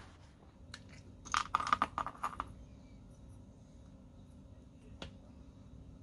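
A quick run of small clicks and rattles from small tools and parts handled at the workbench, then a single sharp click near the end, over a faint steady hum.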